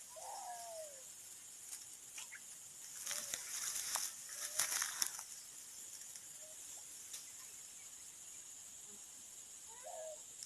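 Insects drone steadily at a high pitch. A few seconds of rustling noise, the loudest part, come about three to five seconds in, and short falling calls sound at the start and again near the end.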